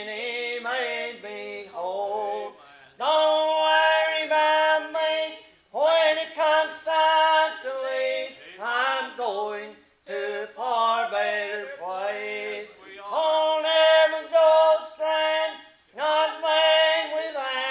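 Men's and women's voices singing a slow gospel song in phrases a few seconds long, with brief pauses between lines.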